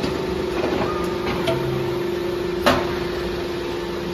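Hydraulic power unit of a solder billet peeling machine, its electric motor and pump running with a steady hum. A sharp clank comes about two and a half seconds in, with a couple of lighter ticks a little before it.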